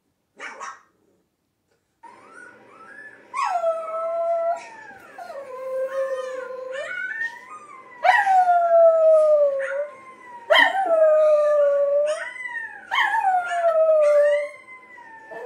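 Dogs howling: a dog video on a television and a small white dog howling along with it, in overlapping long howls that start high and slide down in pitch. The three loudest howls come from about eight seconds in, after a brief sound near the start and a second of quiet.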